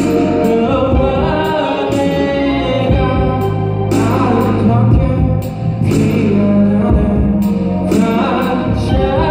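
Live rock band playing: electric guitars with a male voice singing over them, and sharp rhythmic hits through the music.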